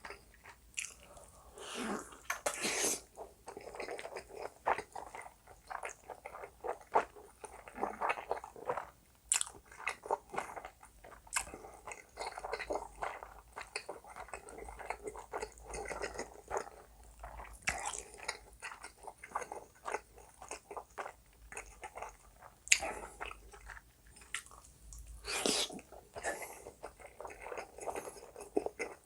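Close-miked eating of spicy black bean noodles and Spam: steady irregular chewing and biting with many small wet clicks, and a few louder bites near the start and near the end.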